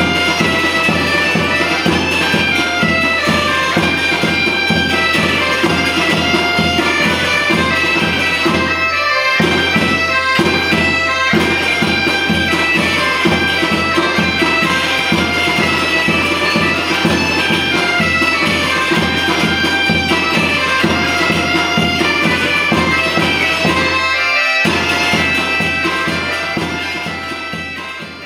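Background music: a melody over a steady low drone, with a fast even rhythmic pulse, fading out near the end.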